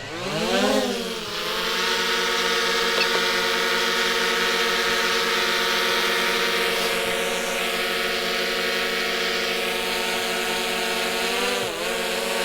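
DJI Mini 3 Pro drone's motors and propellers spinning up with a rising whine, then holding a steady buzzing hover tone. Near the end the pitch dips briefly and comes back up.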